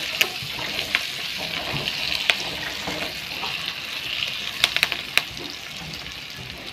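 Sliced shallots, garlic, red chili, lemongrass and bay leaves sizzling steadily in hot oil in a non-stick wok as the aromatics are sautéed until fragrant. A silicone spatula stirring them clicks against the pan now and then, with a small cluster of taps about four and a half to five seconds in.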